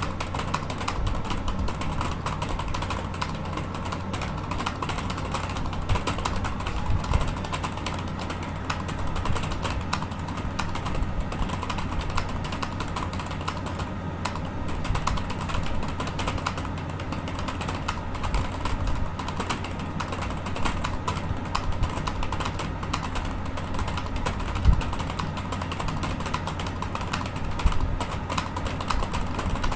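Fast touch-typing on a computer keyboard: a continuous, rapid stream of key clicks over a steady low hum.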